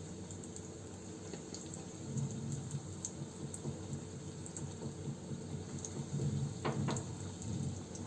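Breaded chicken-potato kababs deep-frying in hot oil in a kadai: a steady sizzle with scattered small crackles, and a couple of sharp clicks close together near the end.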